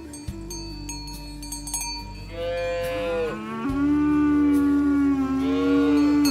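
Ox mooing twice: a shorter call that rises and falls, then a louder, long, steady moo that cuts off suddenly. A cowbell clinks before the first call.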